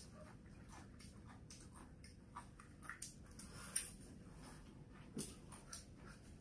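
Quiet eating: a handful of faint, light clicks of chopsticks against bowls, the clearest a little before four seconds in, over a very low background.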